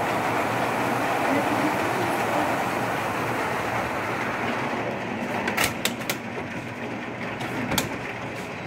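Torrential rain pouring down, heard through a window glass as a steady, dense rush that eases slightly about halfway through. A few sharp taps stand out in the second half.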